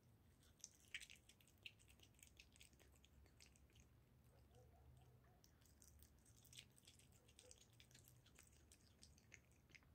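Cat eating a piece of liverwurst: faint, quick wet mouth clicks of chewing and licking, in two runs, one in the first few seconds and another in the second half.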